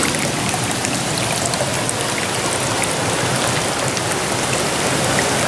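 Fountain water running and splashing down a stepped stone channel of small cascades, a steady, even rush.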